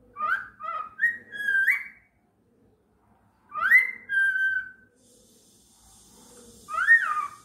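Cockatiel whistling a song in short phrases of clear, mostly rising notes: a quick run of four, then two more, then a single rising-and-falling whistle near the end. A faint steady hiss sits under the last few seconds.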